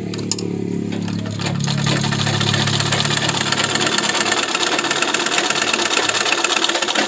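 Old black sewing machine running steadily with a rapid, even clatter as it stitches a test seam through fabric, checking the thread tension set to cure puckered stitching. It picks up and gets louder about a second and a half in.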